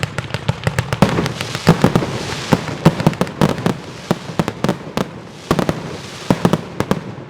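Fireworks going off: a rapid, irregular string of sharp bangs and cracks with crackling between them, thinning out near the end.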